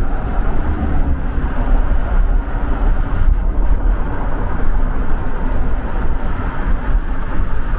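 Vehicle cruising on the highway, heard from inside the cab: a steady rumble of engine and tyre noise with a faint, even engine hum.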